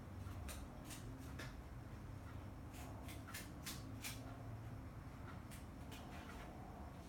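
About a dozen light, irregular clicks and taps, most between half a second and four seconds in and a few more near six seconds, over a steady low hum.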